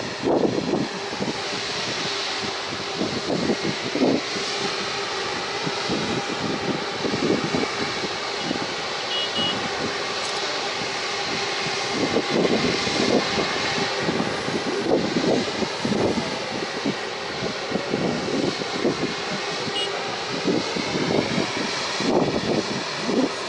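Rolls-Royce Trent 700 jet engines of an Airbus A330-200 running steadily at low power while the airliner stands on the runway. A constant jet hum with a steady tone and a faint wavering whine above it.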